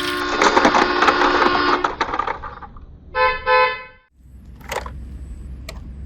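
A vehicle horn sounds two short honks about three seconds in. Before them there is a louder stretch of mixed vehicle noise with steady tones running through it, and after them a low rumble with a couple of clicks.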